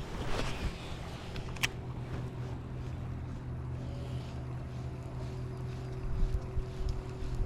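Wind buffeting the microphone on a kayak, over a steady low hum, with two sharp clicks in the first two seconds.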